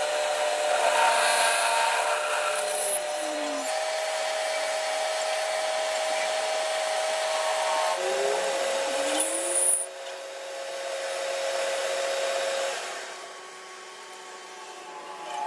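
A metal-cutting lathe machining a clutch flywheel: a steady whining tone over grinding, scraping noise, which falls away about thirteen seconds in.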